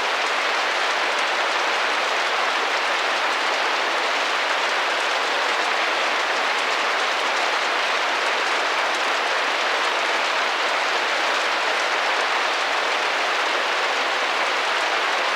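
Steady rain pattering against a window pane, an even unbroken hiss of many small drop taps.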